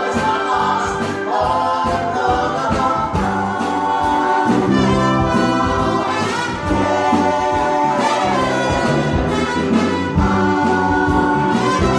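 A live big band with horns playing behind a group of singers who sing together into microphones.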